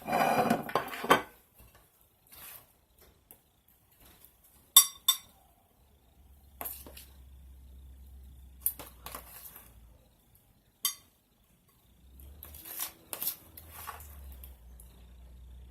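Kitchen utensils knocking and clinking against a dish while deviled eggs are filled: a louder clatter in the first second, then scattered single clicks and taps every second or two.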